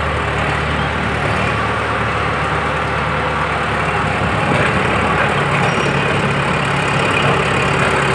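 Heavy diesel engine running steadily at low revs, its note shifting slightly about halfway through.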